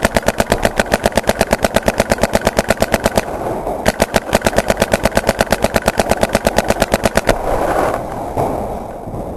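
Paintball marker firing rapid strings of shots, roughly ten a second. There is a brief pause about three seconds in, and the firing stops a little past seven seconds.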